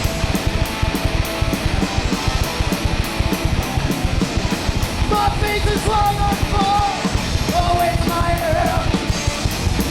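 Live punk rock band playing: a fast, even drumbeat under electric guitar, with shouted vocals coming in about halfway through.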